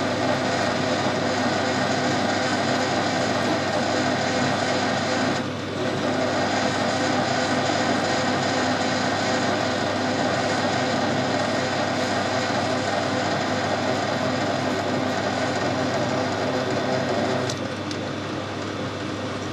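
Machine tool running while cutting a steel tube: a steady motor drone with dense cutting noise, briefly easing about five seconds in and dropping off near the end.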